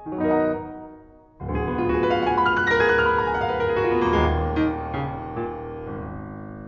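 Background piano music: a few notes, then a full loud chord about one and a half seconds in that rings on and slowly fades.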